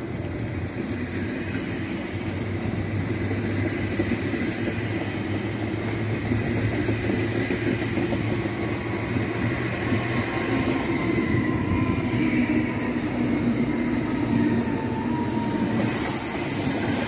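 Deutsche Bahn ICE high-speed train running in along the platform track and passing close by, a steady rumble of wheels on rail that grows louder as it nears. A thin high-pitched squeal comes in near the end as the cars go past.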